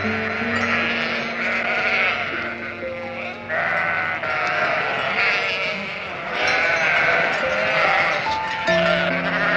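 Sheep bleating in several long calls over background music with steady held notes.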